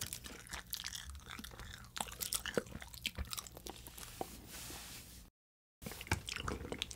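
Close-miked mouth sounds of eating edible oblate starch film: the thin film crinkling and crackling with wet lip and tongue clicks, many small irregular ticks. The sound cuts to dead silence for about half a second a little past five seconds in, then the clicks resume.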